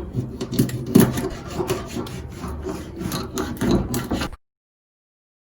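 Rough, irregular rubbing and scraping strokes from catfish being cleaned by hand. The sound stops abruptly about four seconds in.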